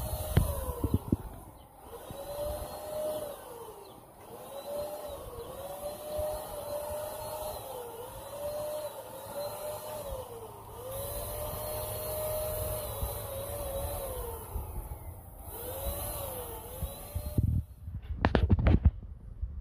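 Electric paint sprayer running and spraying paint: a steady hiss over a motor tone that sags and climbs back in pitch again and again, with short breaks between passes. It stops about 17 seconds in, and a few quick knocks follow.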